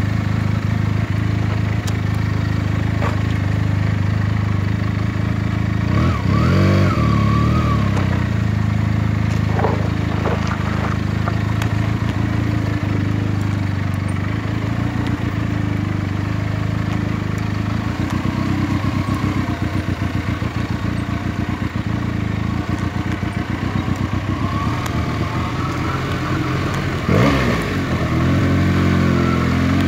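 Benelli TNT 300's parallel-twin engine running steadily while riding along a rough dirt track. The engine pitch rises and falls about six seconds in and again near the end.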